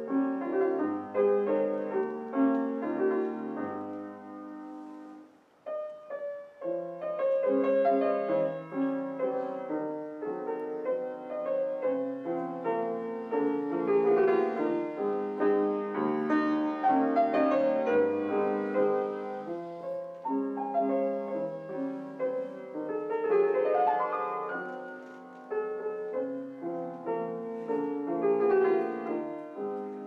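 A grand piano played solo. The music drops almost to silence for a moment about five seconds in, then goes on.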